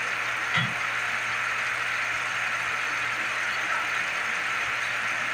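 Chopped pechay and sardines sizzling steadily in a frying pan while the greens wilt, over a low steady hum, with one soft thump about half a second in.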